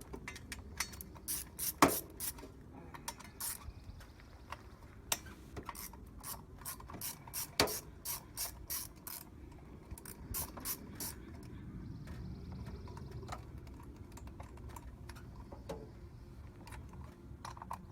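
A socket ratchet wrench clicking in quick, irregular runs as the bolts holding a turbo wastegate are worked loose, with a couple of sharper metal knocks. The clicking dies down after about eleven seconds.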